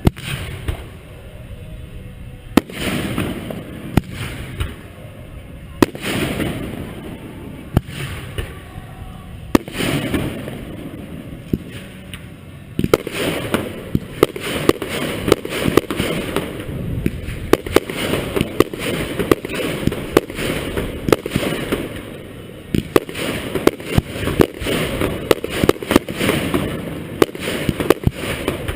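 Aerial fireworks shells bursting close overhead: separate loud bangs with rumbling echoes every second or two, then from about halfway through a dense barrage of rapid bangs and crackling.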